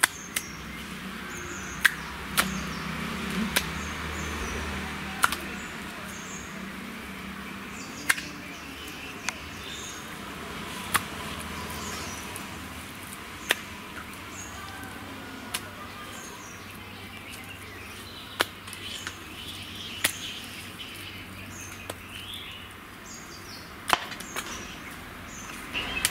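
Sharp single knocks or taps, a dozen or so at uneven gaps of one to three seconds, over faint bird chirps.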